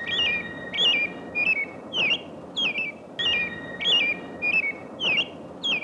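A songbird chirping over and over: about ten short whistled notes, evenly spaced roughly every half second, over a faint steady high tone and hiss from an old film soundtrack.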